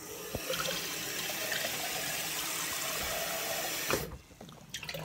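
Water running from a tap into a glass as a steady hiss. It is cut off abruptly about four seconds in, with a knock as it stops.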